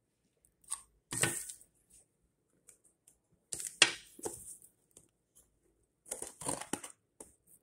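Small cardboard box handled and its sealing tape opened, giving several short bursts of tearing and scraping with pauses between.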